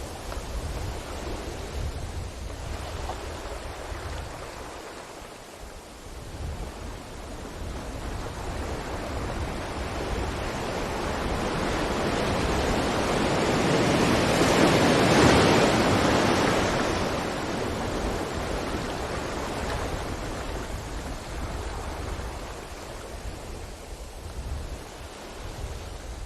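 Sea waves on a beach. The surf swells to a loud peak about halfway through and then falls away, over a steady low rumble.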